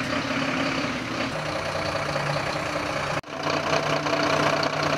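Large truck engine running steadily at idle. The sound breaks off abruptly about three seconds in and resumes straight away.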